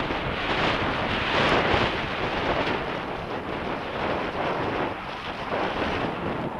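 Wind buffeting the microphone of a helmet-mounted camera while riding a mountain bike downhill, mixed with the tyres rolling over mud and leaves, a steady rushing noise.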